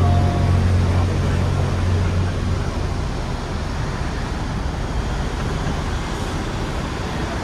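Hong Kong electric double-decker tram running, heard from its upper deck with the windows open: a steady rumble of the tram and street traffic, with a deep hum that fades out over the first two seconds or so.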